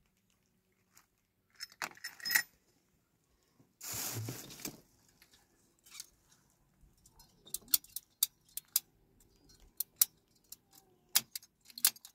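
Red ratcheting plastic pipe cutter clicking as it is squeezed on a plastic water pipe: a run of sharp, irregular clicks in the second half. A short scraping noise comes about four seconds in.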